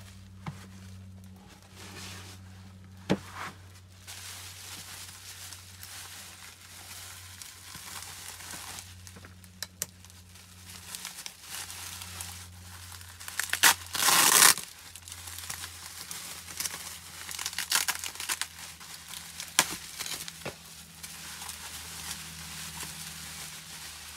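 Bubble wrap and packaging being handled and unwrapped: crinkling with scattered sharp crackles, and a loud tearing rip about fourteen seconds in. A steady low hum runs underneath.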